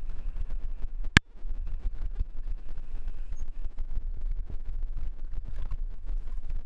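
A mountain bike riding over a bumpy dirt trail: steady wind rumble on the microphone with tyre noise and many small rattles of the bike over the ground. One sharp knock stands out about a second in.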